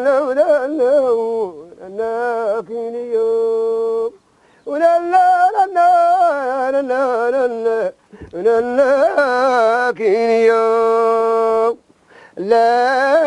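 A single voice singing a slow, ornamented melody in long phrases, with held notes that waver and glide. There are short breaks between phrases, roughly every three to four seconds.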